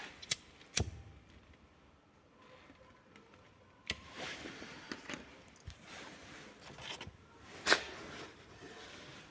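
Handling at the fireplace while getting ready to light it: a few sharp clicks and knocks, the loudest near the end, with soft rustling between them.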